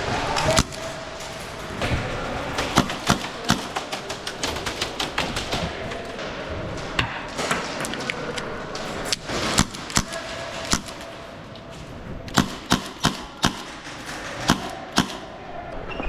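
Airsoft guns firing: sharp pops at irregular intervals, some single and some in quick strings of three or four, about two or three a second, the densest run near the end.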